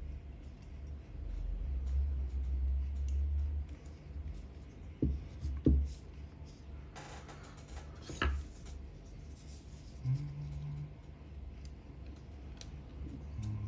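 Small carburetor parts and tools being handled on a workbench while the idle screw is fitted: a few light knocks and clicks and a short rustle over a low steady hum.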